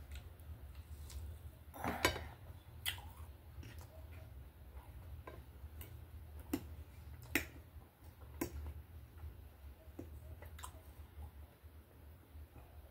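Eating sounds: irregular sharp clicks of a metal fork and knife against a ceramic plate as food is cut and picked up, with chewing, over a steady low hum.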